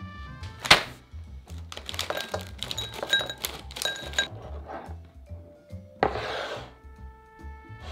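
A glass bowl knocks down on a wooden board. Sweet potato cubes are then poured in from a plastic bag, clattering and clinking against the glass for about two and a half seconds. About six seconds in, the bowl is slid across the wood, all over background music with a steady beat.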